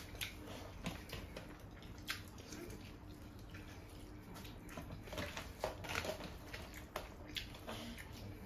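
Hands squishing and mixing rice with chicken curry gravy on metal plates, with chewing and scattered small clicks of fingers and food against the metal.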